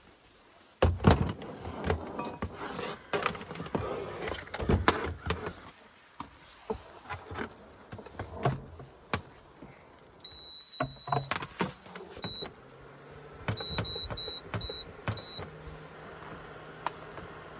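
Knocking and handling clatter, then a series of high electronic beeps: one long beep followed by several short ones. Near the end a steady low hum starts up.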